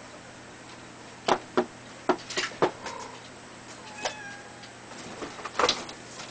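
A two-month-old Exotic Shorthair kitten at play gives a faint, slightly falling mew about four seconds in, and perhaps a shorter one a second before. Around it come a scatter of sharp taps and knocks, the loudest sounds, as it pounces on the wooden shelf and the wand toy strikes it.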